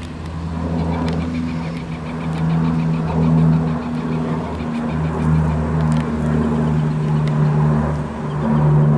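A steady low engine drone with several held tones, breaking off and resuming every second or two and growing somewhat louder toward the end.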